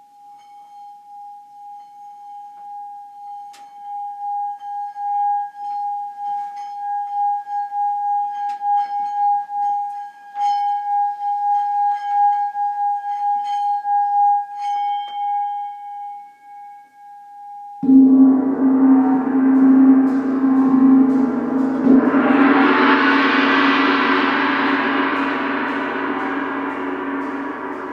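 A handheld singing bowl is rubbed around its rim, giving one steady ringing tone that swells and wavers. About 18 seconds in a large wall-hung gong is struck, then struck again about four seconds later. Its deep ring spreads into a bright, shimmering wash that slowly fades.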